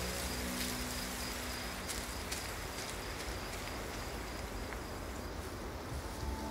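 Quiet rural field ambience: a steady hiss with faint, repeating high insect chirping in the first couple of seconds.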